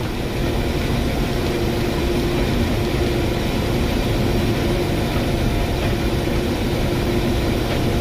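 Case IH 1680 combine running under load while picking up and threshing a canola swath: a steady diesel engine and machinery drone with a constant hum through it.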